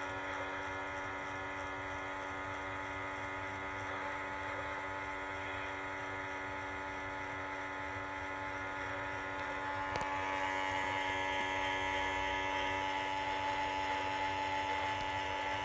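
Toy model train running on its track layout: a steady electric hum from its motor and electrics, with a single click about ten seconds in, after which it is a little louder.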